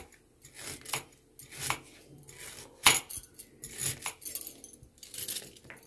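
Kitchen knife slicing a white radish (mooli) into rounds on a plastic chopping board: about six crisp cuts a little under a second apart, each ending in a knock of the blade on the board, the loudest about three seconds in.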